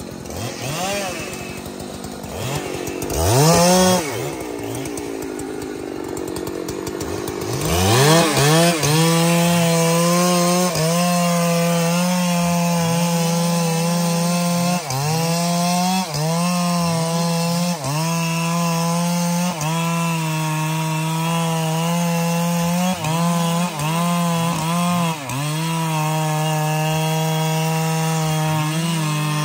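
Large Husqvarna two-stroke chainsaw revving up and down a few times, then held at full throttle cutting into trembesi (rain tree) wood. Its pitch dips briefly every second or two as the chain bogs in the cut.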